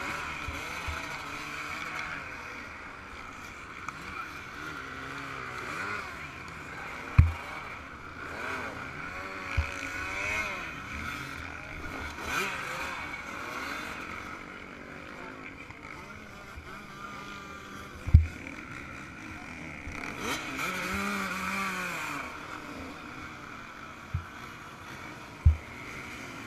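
Yamaha YZ125's two-stroke engine revving up and down over and over under racing throttle, with five sharp low thumps scattered through it.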